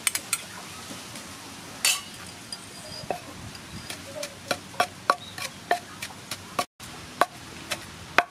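A wooden pestle pounding chili, garlic and seasoning in a wooden mortar: short dull knocks, two or three a second, starting about three seconds in. Before that, a few light clicks as seasoning is spooned in.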